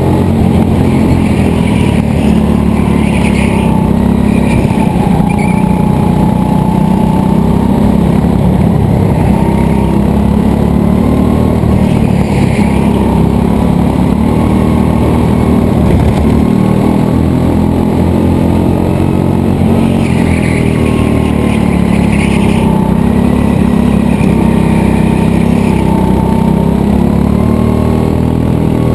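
Racing go-kart's motor running at speed, heard from onboard the kart, its pitch rising and falling as it goes through the corners.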